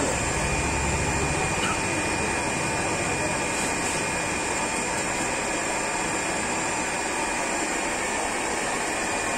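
Steady whirring drone of a fish-tank aeration blower, with a thin high whine running through it.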